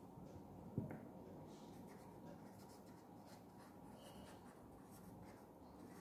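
Faint scratching of a pen writing a word on paper on a clipboard, in short strokes, with a soft knock a little under a second in.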